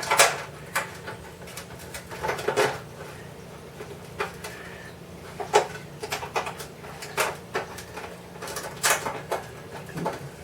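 Irregular light clicks and knocks of small metal parts being handled and twisted while a clock case is put back together, over a steady low hum.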